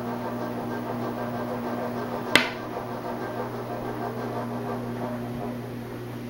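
A single sharp click about two seconds in, from hands working a small plastic pot and a plastic stick, over a steady low hum.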